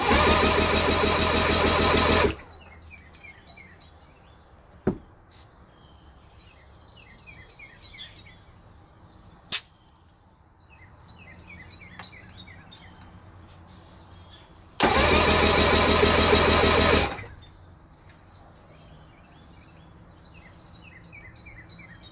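1982 Mercury 115 hp inline-six two-stroke outboard cranking over on its starter for a compression test, in two bursts of about two seconds each with a fast, even rhythm: one at the start and one about two-thirds of the way in. Cylinder one reads a healthy 135 psi. Between the bursts come two sharp clicks and birds chirping.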